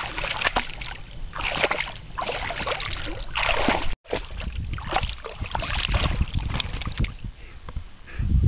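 Pond water splashing and sloshing in irregular spells as a kuvasz wades and noses about for rocks underwater.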